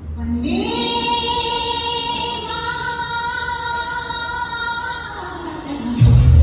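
Patriotic song mashup played back as dance music: a long held sung note, its pitch shifting once midway, over a thin backing, then a heavy bass beat comes back in about six seconds in.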